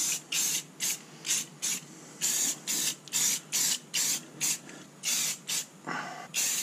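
Aerosol spray paint can sprayed in short quick bursts, about three a second, with brief pauses between runs, laying down a camouflage pattern.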